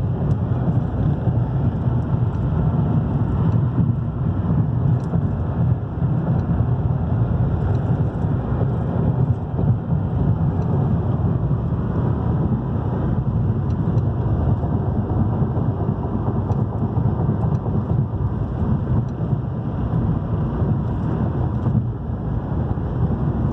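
Steady low rumble inside a car during a thunderstorm, with rain and road noise blending together.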